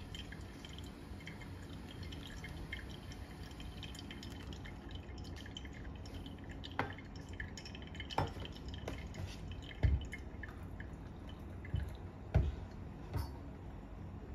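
Brewed coffee dripping from a V60 pour-over dripper, a fine patter of drips that thins out after about five seconds. Several sharp knocks and clinks follow, the loudest about ten and twelve seconds in.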